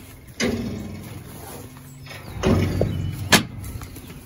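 Metal-framed farm gate handled by hand: a few clanks and rattles of the frame and latch, the sharpest about three seconds in.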